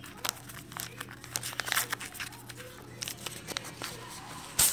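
Plastic and foil takeout packaging crinkling and rustling in short irregular bursts as it is handled, with a louder rustle near the end.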